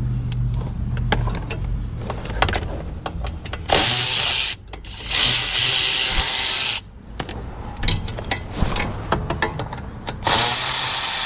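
Cordless power ratchet spinning fasteners out in three runs: a short one about four seconds in, a longer one just after, and another near the end. Clicks and knocks of parts being handled fall between the runs.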